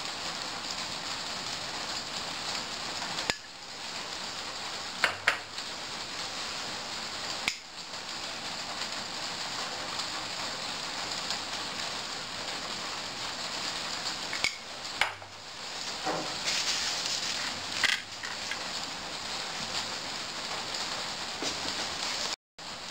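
A spoon and a spatula tapping and clinking against a ceramic bowl and plate while sauce is served: a few scattered sharp clicks over a steady hiss.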